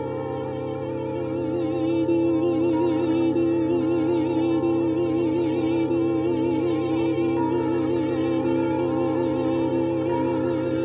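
Music: a voice singing with a wide vibrato over steady held drone tones, getting louder about a second and a half in and then holding.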